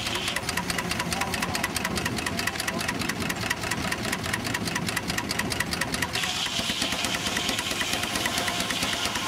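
Single-cylinder steam traction engine running on the belt, its exhaust and motion beating in a rapid, even rhythm. A higher hiss joins in about six seconds in.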